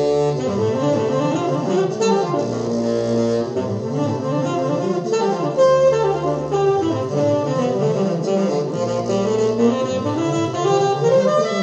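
Electric bassoon playing a solo melody over an orchestra, with a deep bass note returning about every three seconds.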